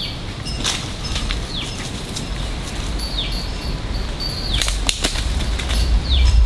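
Forest ambience: a bird repeats a short falling whistle about every second and a half over a thin, steady high insect-like tone. A few sharp crackles cut in, and a low rumble builds in the second half.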